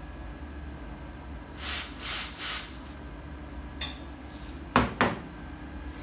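Steam wand of an Iberital L'Anna espresso machine purged in three short hissing blasts, followed by a faint click and two sharp knocks close together near the end.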